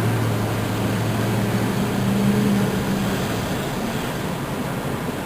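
Car running, heard from inside the cabin: a steady low engine drone over tyre and road noise, the drone easing off about three seconds in.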